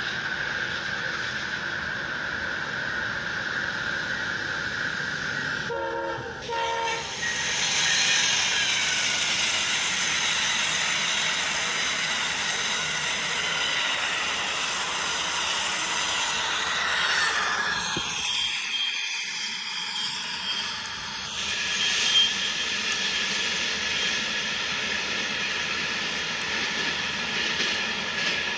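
N-scale model train running on its track: a steady motor whine with wheel noise, growing louder and fuller as the cars pass close by.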